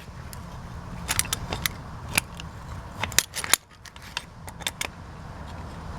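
Light metallic clicks and clinks of hand tools working the horseshoe clip on a drum brake shoe's parking-brake lever, coming in irregular bunches, the sharpest pair a little after three seconds in.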